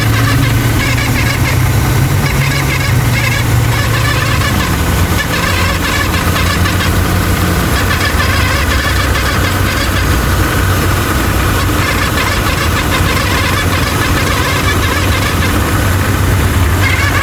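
Car engine idling with a steady high whine over the engine hum, the noise of a failing idler or tensioner pulley on the accessory belt drive.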